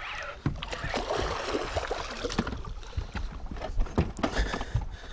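Water splashing and sloshing against the side of a fishing boat as a hooked musky is played near the boat, with scattered knocks and thumps on the hull. The splashing is strongest in the first half.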